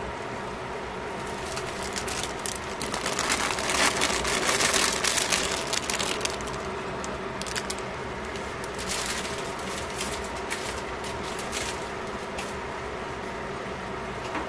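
Chicken pieces sizzling and bubbling in sauce in a stainless steel pan, over a steady hum. From about two to six seconds in, a louder, dense crackle comes as cabbage, carrot and green onion go into the hot pan, then it settles back to scattered pops.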